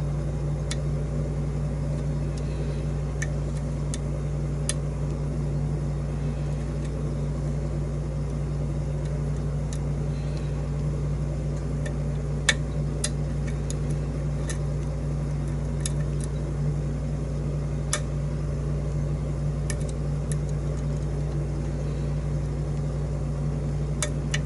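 Lock pick and tension wrench working the pins of a pin-tumbler challenge lock: a dozen or so small, scattered clicks over a steady low hum.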